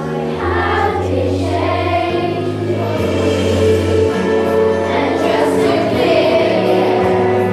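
A children's choir singing a song over instrumental accompaniment with sustained bass notes.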